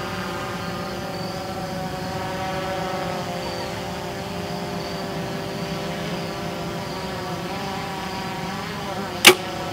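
A steady, slightly wavering engine drone in the background; about nine seconds in, a compound bow is shot with one sharp, loud snap of the string.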